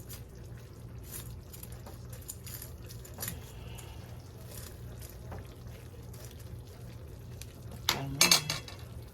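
Metal utensils and dishes clinking faintly now and then, with a louder cluster of clinks about eight seconds in, over a steady low hum.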